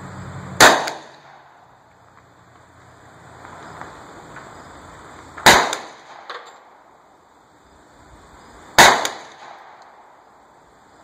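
Hi-Point .40 S&W carbine fired three times as slow, single aimed shots, the second about five seconds after the first and the third about three seconds later. Each is a sharp crack with a short echo, and a much fainter crack follows the second shot.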